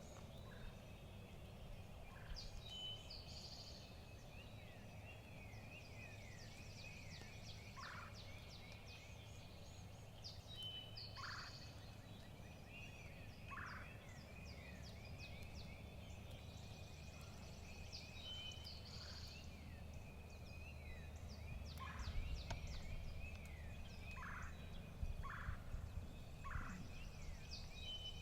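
Wild turkey gobbler gobbling faintly several times, over continuous songbird chirping.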